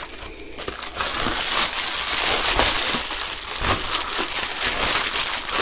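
Plastic padded mailer crinkling and crackling as it is handled and rummaged open, starting about a second in and continuing as a dense rustle.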